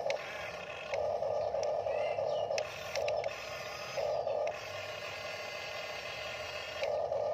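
Small electric motors and plastic gearboxes of a remote-control toy excavator whirring in short stop-start bursts as the boom and bucket move, the pitch changing from burst to burst.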